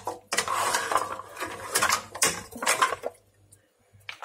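Metal ladle scraping and clinking against a metal cooking pot as cooked mussels and broth are scooped out, with irregular knocks and clatter. It dies away about three seconds in, and there is one more knock near the end.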